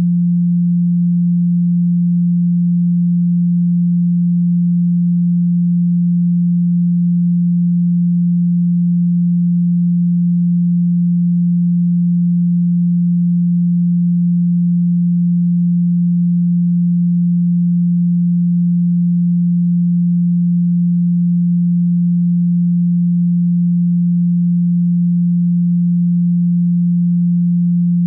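A pure, steady 174 Hz sine tone, a low hum held at one pitch and one level without change.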